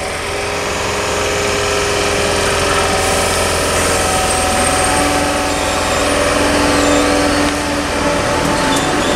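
Southern class 313 electric multiple unit humming steadily at the platform, a low electrical drone with several steady tones that grows gradually louder.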